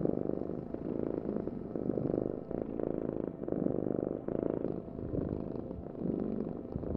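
Domestic cat purring: a continuous rapid rumble that swells and eases in even waves about once a second.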